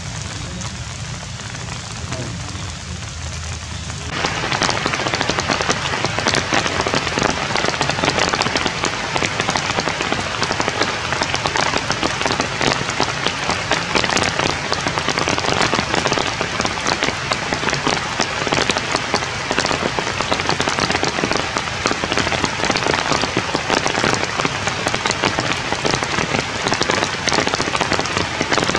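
Rain pattering steadily, a dense crackle of many small drops on leaves and wet ground. About four seconds in it abruptly becomes louder and denser.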